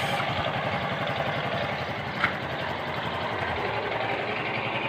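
Motorcycle engine idling steadily with an even, fast pulse. A single short click comes about two seconds in.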